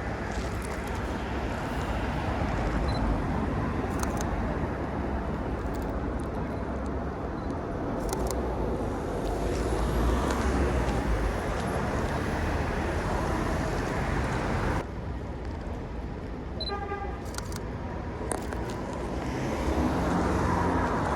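Street traffic noise with cars running past, and a short car horn toot about three-quarters of the way through.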